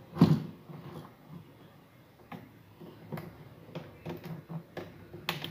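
Pocket-knife blade clicking and scraping against a circuit board while prying a half-desoldered volume potentiometer loose: a string of short, sharp ticks and taps, the loudest about a quarter second in.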